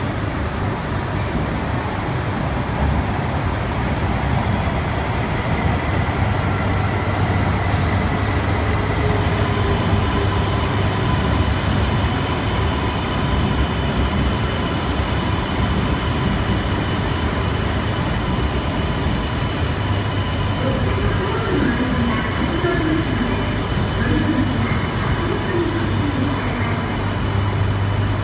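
E3 series Shinkansen train standing at the platform with its onboard equipment humming steadily; a steady high whine joins the hum about ten seconds in.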